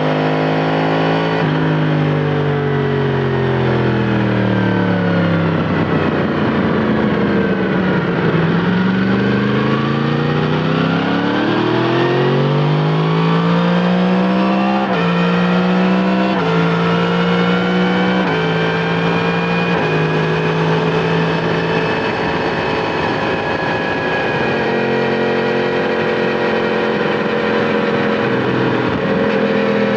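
Yamaha MT-10 SP's crossplane inline-four through an Akrapovic titanium slip-on exhaust, heard from the bike while riding. The engine note falls for several seconds as the bike slows, then climbs under acceleration, with four quick upshifts each dropping the pitch around the middle. After that it settles into a steady cruise with small throttle changes.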